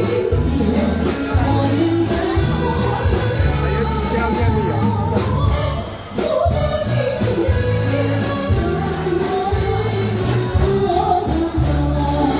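Pop music with a singing voice over a steady bass beat.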